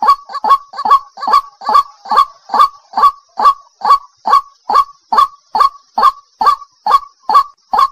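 White-breasted waterhen (ruak-ruak) calling in a steady, monotonous series of short, loud, downward-falling notes, a little over two a second. It is the lure recording billed as a female calling males.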